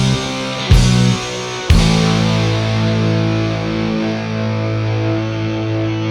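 Rock band of distorted electric guitars, bass and drums playing: two loud accented hits together in the first two seconds, then a distorted chord held and ringing out.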